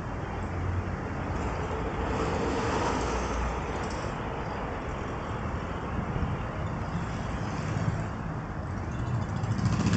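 Steady city street noise, mostly a low hum of road traffic.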